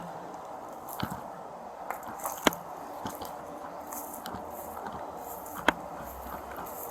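Handling noise on a body-worn camera's microphone: a steady hiss with a few sharp clicks and knocks, the loudest at the very start, about two and a half seconds in and near six seconds in.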